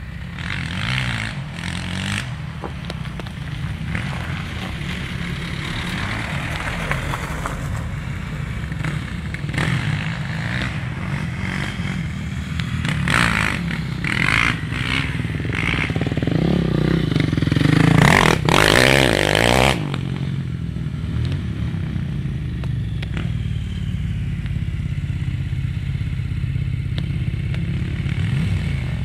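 Quad bike engine running and revving across a field, rising and falling in pitch, with a dirt bike's engine also running. Loudest about eighteen seconds in, then dropping back suddenly.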